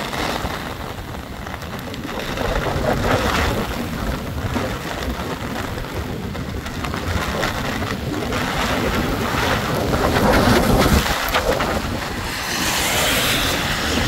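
Storm wind gusting onto the microphone: a rushing noise that swells and fades, loudest about ten seconds in.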